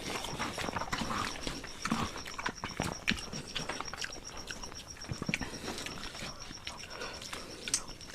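Close-up eating sounds of rice and egg curry: irregular wet chewing, lip smacks and small clicks.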